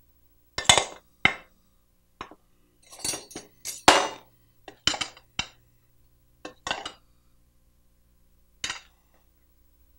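A spoon and a mesh sieve clinking against a glass mixing bowl as glutinous rice flour is sifted: a string of short, irregular clinks, then a pause and one last clink near the end.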